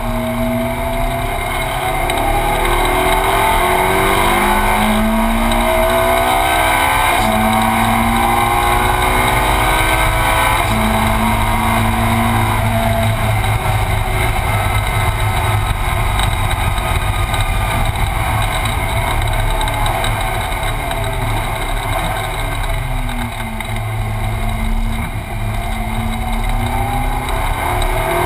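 Ferrari 458 Challenge's V8 engine heard from inside the cockpit, climbing in pitch through the gears with short breaks at each upshift. It holds high revs, then drops away with a dip in loudness about three quarters of the way through as the car slows and downshifts, before climbing again near the end.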